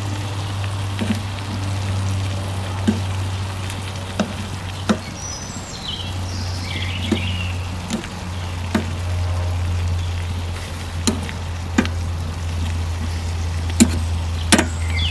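Food frying in a pan on a wood stove, with sharp clicks and crackles at irregular intervals over a steady low hum. A few short bird chirps sound in the middle and near the end.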